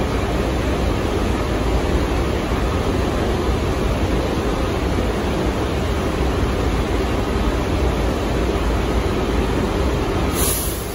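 New York City subway train rumbling steadily through the station, with a short high hiss near the end.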